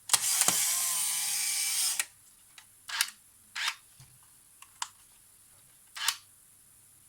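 Polaroid SLR 680 instant camera: a click, then its motor whirs for just under two seconds as it runs through a cycle, followed by four separate mechanical clicks spaced about a second apart. It runs off a battery pack that the owner suspects is too weak for the camera.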